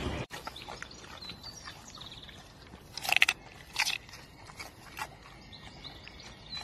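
A wolf biting into a raw carrot: a loud crunch about three seconds in, a second one just after, then softer chewing crunches.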